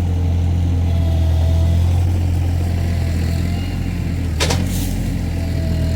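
Mini skid steer's engine running steadily under work, with a faint whine above it and one brief sharp noise about four and a half seconds in.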